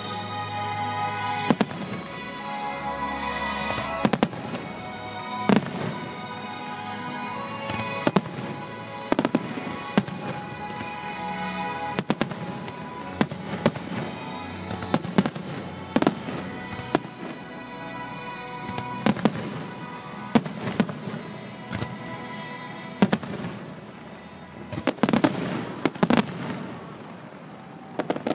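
Aerial fireworks shells bursting in a display: a string of sharp bangs, roughly one every second or two at uneven intervals, over music with sustained notes.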